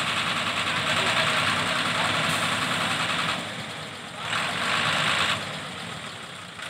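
Diesel engine of a borewell drilling rig truck idling. The sound dips about three and a half seconds in, comes back a second later, and falls away again near the end.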